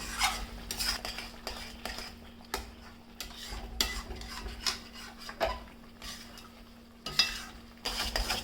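A spoon scraping and stirring thick turmeric, ginger and jaggery halwa around a pan in irregular strokes, with a light sizzle of ghee. The halwa is being roasted dry until the ghee separates.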